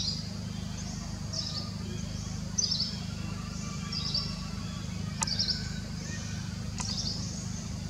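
A bird chirping: short, high, falling chirps repeated about once every second and a quarter, six in all, over a steady low rumble. Two sharp clicks come in the second half.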